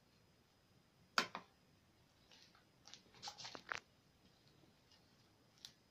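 Homemade glue-and-borax slime being stretched and squeezed by hand, giving off sharp clicks and little popping crackles: two clicks about a second in, a quick cluster of pops around three to four seconds in, and one more click near the end.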